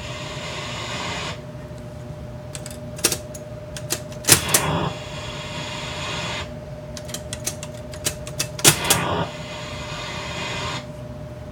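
Stern Meteor pinball machine: three times, a burst of mechanical clicks followed by a hiss-like sound effect lasting a second or two, over a steady hum. It is the machine's one working sound, heard when the Meteor drop-target banks reset, which points to a sound board fault since nothing sounds during gameplay.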